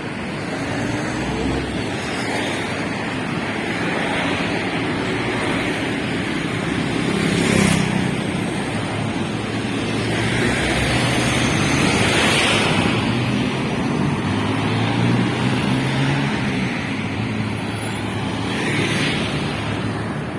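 Road traffic: a steady hum of engines and tyre noise, with several cars passing by one after another, each swelling and fading.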